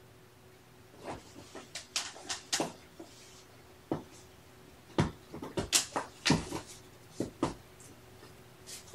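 Irregular bouts of scratching, rustling and soft knocks from cats moving about, heaviest past the middle.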